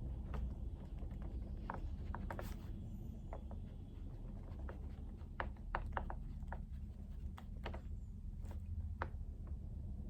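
Scattered light clicks and taps of work at a desk, irregular and bunched in the middle, over a low steady hum.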